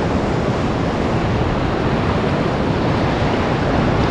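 Sea waves washing through shallow water, with wind buffeting the microphone: a loud, steady rush of noise.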